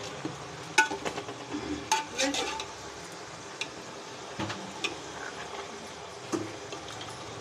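A metal spoon clinks and scrapes against a large metal pot as marinated chicken pieces are stirred into fried onions, over a steady sizzle of frying. The clinks come thick in the first two and a half seconds, then only now and then.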